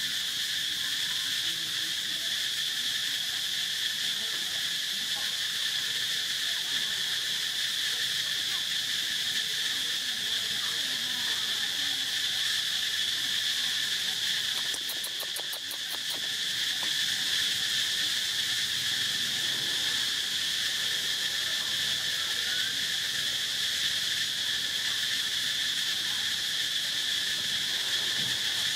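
Steady high-pitched insect chorus, a continuous buzz with a weaker, lower band beneath it. About halfway through it dips briefly, with a quick run of faint clicks.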